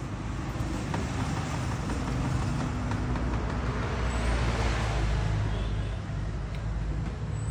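Road traffic going by, with a steady low engine hum; one vehicle passes close, loudest about four to five seconds in.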